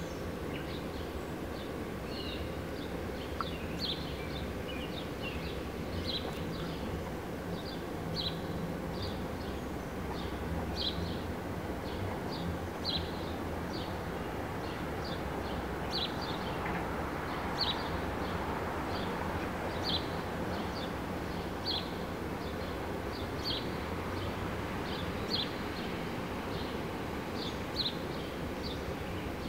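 Quiet outdoor ambience: a steady low rumble with a short high chirp repeating about once a second.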